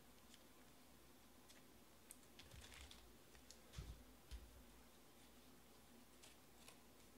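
Near silence: room tone with faint, scattered small clicks and light rustles, and two soft thumps about four seconds in.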